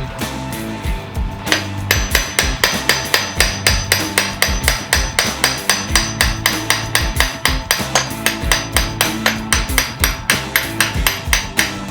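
A hammer tapping a seal driver to drive a rear main seal onto the crankshaft of a BMW R1150GS boxer engine. A few spaced taps come first, then a quick, steady run of about four strikes a second that stops near the end.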